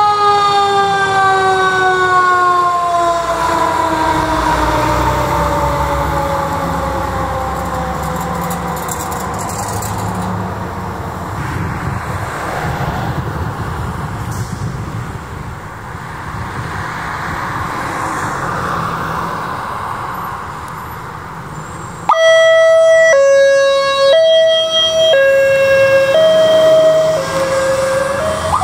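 A fire truck's siren winds down in a long, slowly falling wail, leaving the rumble of the truck's engine and road noise. About 22 seconds in it cuts to a different siren that alternates between a high and a low tone, switching about once a second.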